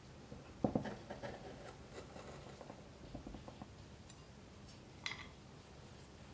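Kitchen handling sounds: two sharp knocks a little under a second in, then light tapping and scraping, and another sharp click about five seconds in.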